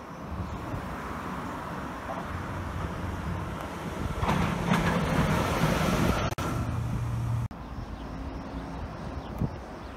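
Freight locomotive approaching and passing on the line, its engine and wheel noise growing louder to a peak about four to six seconds in. The sound then cuts off abruptly, leaving a quieter steady rumble.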